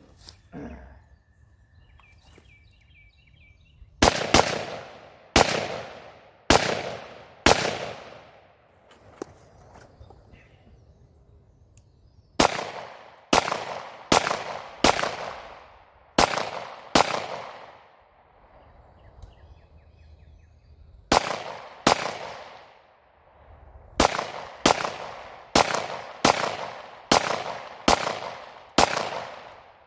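Gunshots fired in strings of single shots at about one a second, each with a fading echo, in four volleys separated by short pauses.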